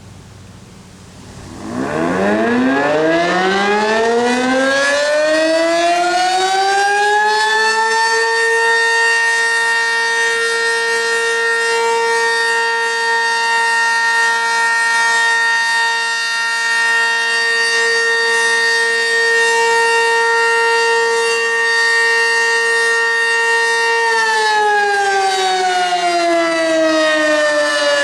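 Sentry 10V2T dual-rotor, 10 hp omnidirectional tornado siren sounding a steady alert signal with its two-tone sound. It winds up from silence a couple of seconds in, reaches full pitch after about six seconds and holds it, then begins to wind down near the end.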